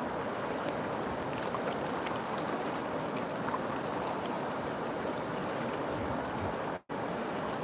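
River water flowing in a steady rush, with a few sharp little ticks and splashes over it. The sound drops out for an instant near the end.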